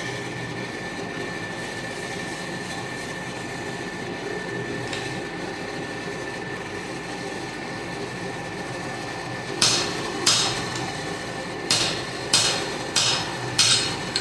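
A hand hammer striking hot spring steel on an anvil: about seven sharp, ringing blows in the last four and a half seconds. Before the blows there is only a steady rushing noise with a faint high whine.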